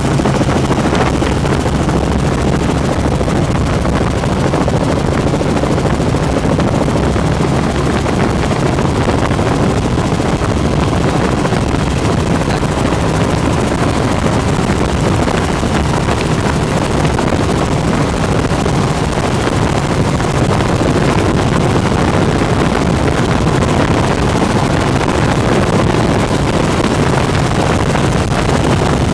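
Steady, loud engine and rotor noise of a light helicopter in flight, heard from inside its cabin.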